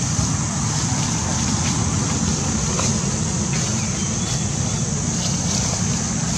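Steady outdoor background noise: a low, flickering rumble with a constant high hiss above it and a few faint ticks. No monkey calls stand out.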